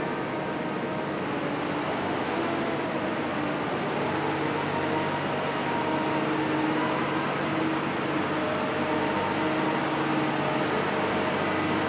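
Fletcher 3100 Series roof bolter running, a steady continuous machine drone with a constant hum.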